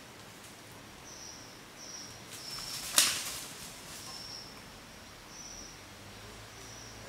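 Woodland ambience with short, high-pitched chirps repeating every second or so, and one sharp, loud crack about three seconds in.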